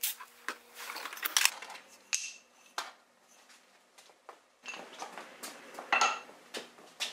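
Cordless drill running as its bit bores into a wooden block in a vise, stopping about a second in. Then scattered clinks and knocks of metal tools and parts being handled, with a burst of clatter near the end.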